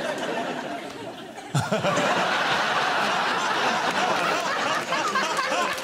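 Studio audience laughing, swelling suddenly about a second and a half in into a loud burst of laughter.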